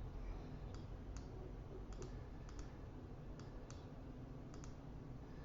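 Faint computer mouse clicking: a dozen or so short clicks, several in quick pairs like double-clicks, over a low steady hiss.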